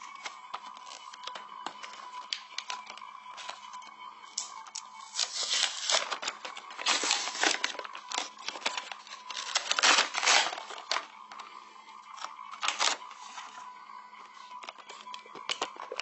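Handling noise: crinkling and tearing with many sharp clicks, loudest in the middle stretch, over a steady faint hum.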